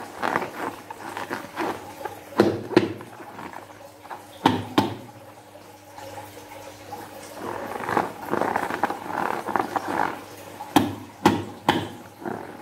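Hands squeezing and handling a filled rubber balloon, with rubbery rustling and a few sharp knocks and taps: pairs about 2.5 s and 4.5 s in, and a quick run of three about 11 s in.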